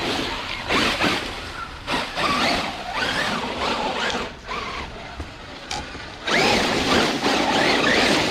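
Traxxas Unlimited Desert Racer RC truck's brushless electric motor whining up and down in pitch with repeated bursts of throttle, over a rushing noise of tyres on the ground. It drops quieter for a couple of seconds past the middle, then comes back louder near the end.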